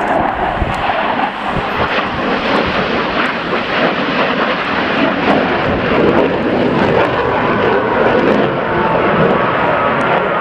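F-16 fighter jets flying past in a display, their jet engines making a loud, steady rushing noise.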